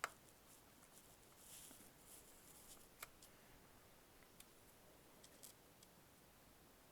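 Near silence, broken by a few faint clicks and a light scrape as small laptop parts are handled: a click at the start, a scrape about a second and a half in, a sharper click about three seconds in, then a few tiny ticks.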